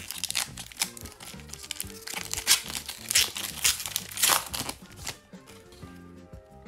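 Foil wrapper of a hockey card pack crinkling as it is pulled open and the cards slid out. It is loudest in the middle and stops about five seconds in, over background music.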